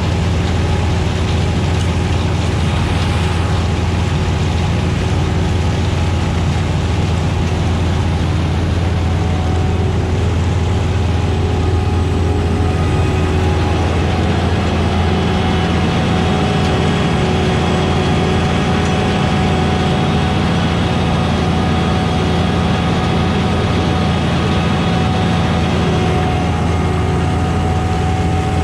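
Heavy diesel farm machinery running steadily under load, a low even drone with steady tones over it; about halfway through a higher whine joins in and the drone thickens.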